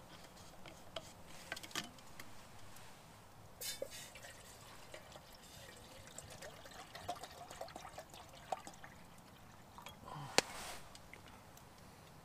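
Small wood fire crackling faintly under a steel cup, with scattered pops and ticks and a sharper click about ten seconds in.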